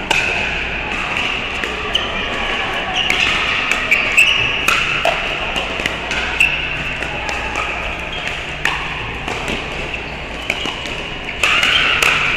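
Sharp pops of pickleball paddles hitting the hollow plastic ball, irregular hits from the rally and from neighbouring courts, over steady background chatter of players.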